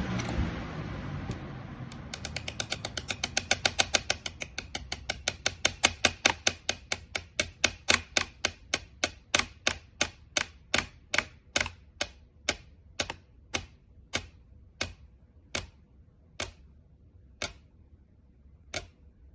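Pelonis 20-inch box fan switched off: the airflow noise dies away about two seconds in and the coasting blades set off a sharp ticking that starts at several ticks a second and slows steadily to about one a second as the fan spins down.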